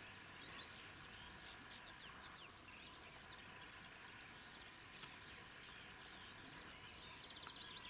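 Faint chorus of small songbirds chirping, many quick high notes that grow busier toward the end, with a single faint click about five seconds in.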